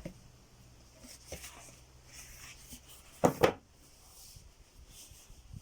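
Handling noise from a record box set being unpacked: light rustling, then two quick knocks close together about three seconds in, as its contents are moved.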